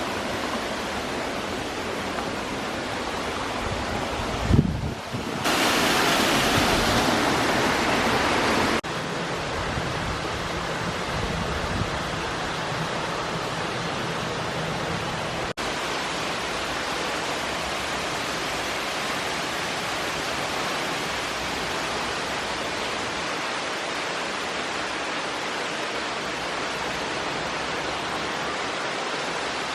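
Waterfall rushing, a steady, even hiss of falling water, briefly louder from about five to nine seconds in.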